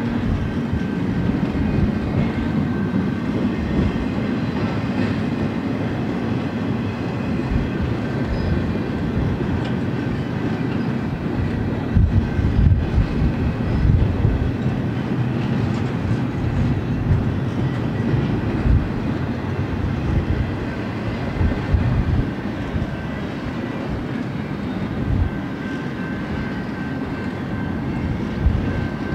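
Double-stack intermodal train's well cars rolling past at close range: a steady rumble of steel wheels on rail with clanks and knocks, loudest about halfway through.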